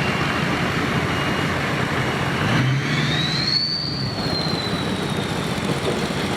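Steady engine noise with a low rumble. About halfway through, a high whine rises, peaks, then slowly drops in pitch and fades.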